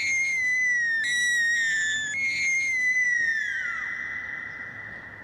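A high whistle-like tone in three long notes, each sliding slightly down in pitch. The last note glides downward and fades, leaving a faint held tone.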